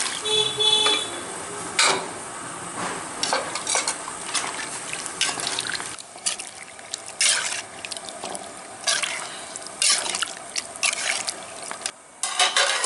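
A metal ladle stirring a thin, watery curry of goat intestine in a large aluminium pot, with liquid sloshing and repeated sharp scrapes and clinks of the ladle against the pot.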